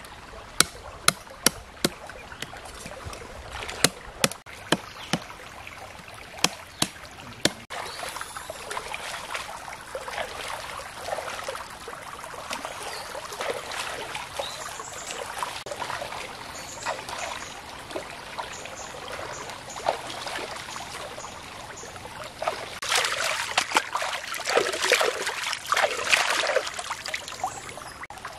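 A knife working on a snakehead murrel fish gives a run of sharp clicks for the first several seconds. After that, stream water sloshes and splashes as the fish is rinsed, with the splashing loudest near the end.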